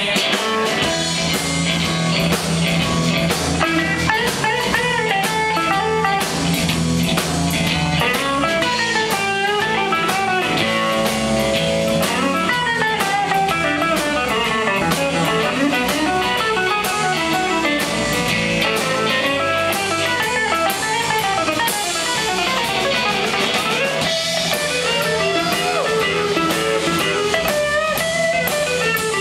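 Electric blues band playing an instrumental break: an electric guitar solo full of bent notes over bass guitar and a drum kit.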